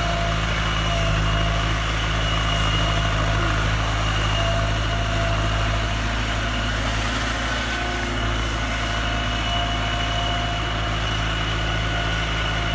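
The 90 hp turbocharged engine of a Talay Thong TR9000 rotary tiller running steadily at an even speed.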